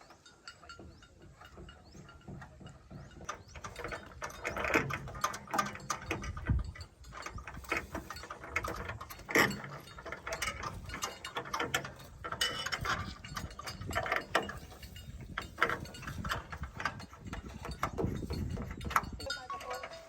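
Irregular metallic clanks, knocks and ratcheting from hand-tool repair work on harvester machinery, growing louder a few seconds in.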